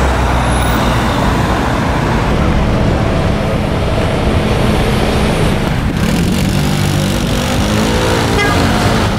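Steady city road traffic: car and van engines running and tyres rolling through an intersection. Near the end, one engine's note rises and falls as it passes close by.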